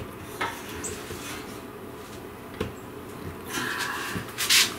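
Faint tool-handling and scraping noises as a clamp is squeezed on a wooden buck to push a dent out of a brass baritone saxophone body, over a low steady hum. There is one sharp click about two and a half seconds in and a short hiss near the end.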